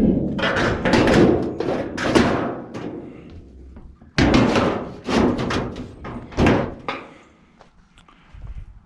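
Scrap being handled and tossed about: a run of sharp clanks and bangs, a short pause about four seconds in, then another run that dies down near the end.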